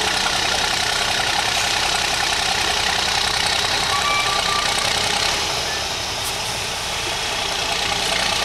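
Diesel engine of a MAN truck-trial truck running steadily at low revs as the truck crawls through the section. It eases off a little around the middle and picks up again near the end.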